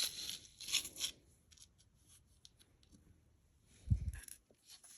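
Costume-jewelry necklaces being handled: scattered light clicks of chain and beads, soft rustling, and a dull thump about four seconds in as something is set down.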